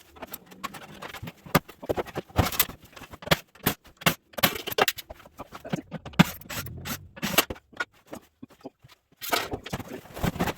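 Irregular knocks, clanks and scrapes of metal parts being handled while an old microwave is taken apart for scrap.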